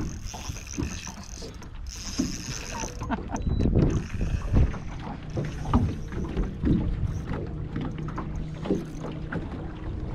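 Small waves slapping and knocking against the hull of a small fishing boat, with wind on the microphone. A low steady hum comes in about halfway through.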